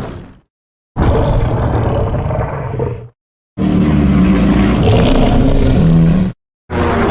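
Fan-made Godzilla (2004 Final Wars version) roar sound effects played one after another. One roar fades out at the start, two more of two to three seconds each follow with short silences between them, and another begins near the end.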